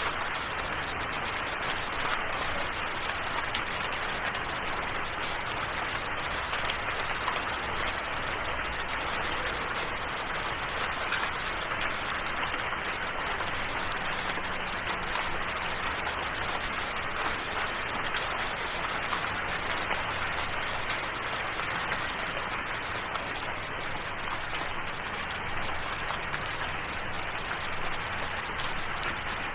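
Steady rain falling, an even hiss of many fine drops that holds constant throughout.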